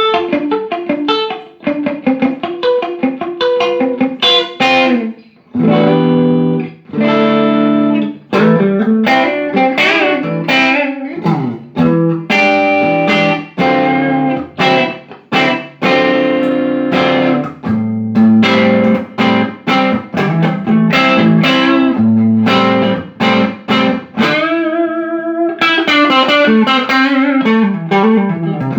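Electric guitar played through a Laney Cub12 valve amp, working again after repair of a blown output transformer, a shorted EL84 and bias supply faults. Quick runs of picked single notes alternate with held chords, with a wavering held note near the end.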